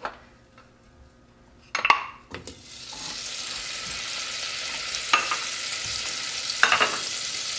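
Butter melting in the hot stainless-steel inner pot of an Instant Pot on sauté: a couple of knocks about two seconds in as it goes in, then a steady sizzle. Two light knocks come later over the sizzle.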